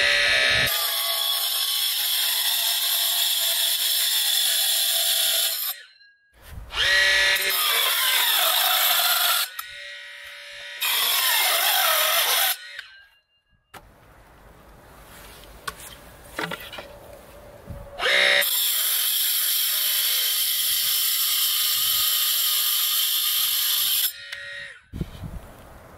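Homemade cordless circular saw, driven by a motor salvaged from another tool, running and cutting through thin boards such as 8 mm plywood. It goes in four runs with pauses between. The last run spins up at its start and winds down near the end.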